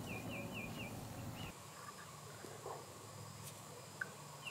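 A bird singing a quick run of about five short, falling chirps in the first second, over quiet outdoor background; a low hum drops away about a second and a half in.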